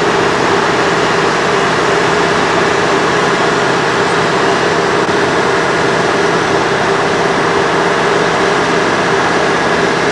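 Mobile crane's engine running steadily as it hoists the bungy-jump cage.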